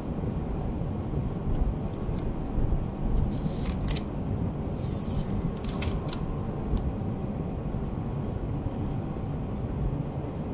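Smartphone box and packaging being handled: scattered light clicks and rustles of cardboard and plastic, with a short hissing rustle about five seconds in. A steady low rumble of background noise runs underneath.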